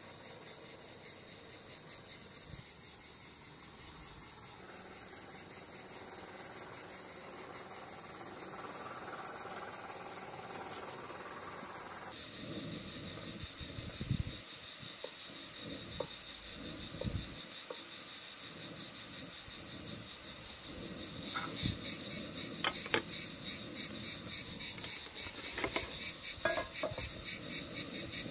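Crickets chirping steadily, louder and more plainly pulsed about two-thirds of the way through. A few light knocks of spatulas against a frying pan come over it in the second half.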